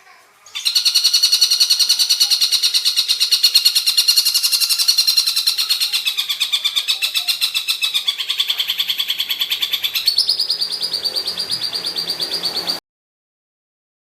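Tengkek buto, a kingfisher, giving a long, fast, harsh rattling call. Its pitch dips in the middle and jumps up again about ten seconds in, and the call cuts off suddenly near the end.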